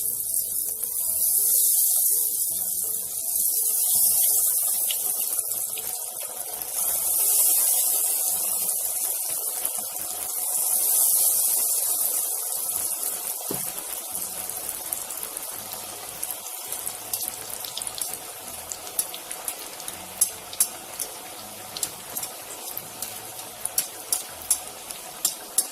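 Breadcrumb-coated paneer fingers frying in hot oil in a kadai: a loud sizzling hiss that swells four times in the first half, then settles to a quieter sizzle with scattered crackles and pops.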